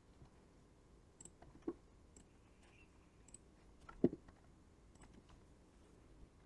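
Scattered light clicks and taps, with one louder knock about four seconds in, from pens being handled away from the paper rather than drawn with.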